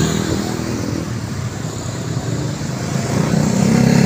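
Street traffic of small motorcycles and scooters running past, their engines a steady drone, with one motorcycle's engine growing louder near the end as it passes close.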